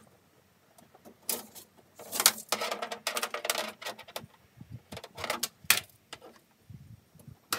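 Clicking and rattling of a retractable steel tape measure being unhooked and let back into its case, with a dense rattle lasting about two seconds. There are scattered sharper clicks before and after it.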